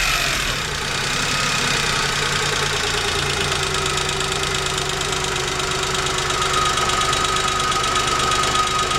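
Chevrolet Spark's 800 cc three-cylinder engine idling steadily, with a steady whining tone over the running. It has a noise that the owner asks might be engine knock.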